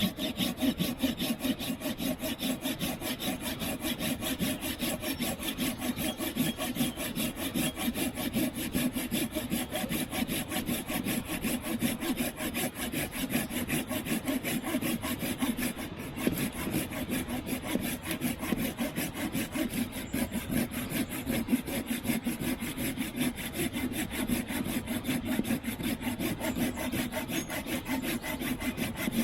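A small hand saw cutting through a piece of wood with steady, quick back-and-forth strokes, its teeth rasping through the grain.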